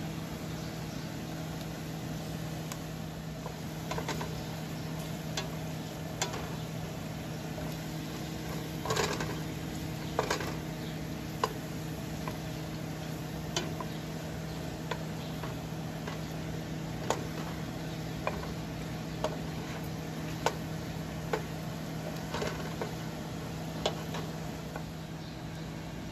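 Chicken and onions sizzling gently in a stainless steel pot, with a cooking utensil clicking and scraping against the pot now and then, loudest about nine and ten seconds in, over a steady hum.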